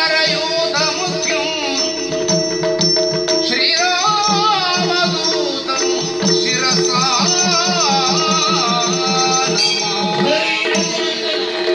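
Yakshagana-style stage music: a male voice sings a wavering melody over a steady drone, while a drum beats a fast, even rhythm and light metallic clicks keep time above it.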